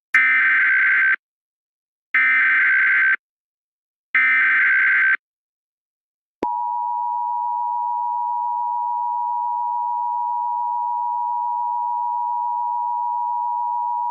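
Emergency Alert System SAME header: three one-second bursts of screeching digital data tones, a second apart. About six seconds in, the EAS two-tone attention signal begins, a steady dual tone held for about eight seconds.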